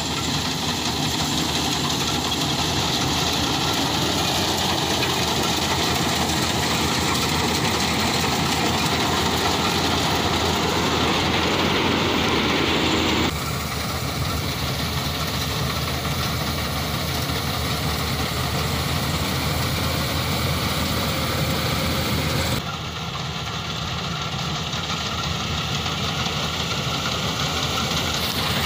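Rice combine harvester running steadily under load, its engine and machinery making a continuous noise that shifts suddenly in level and tone twice, about halfway and again near the end.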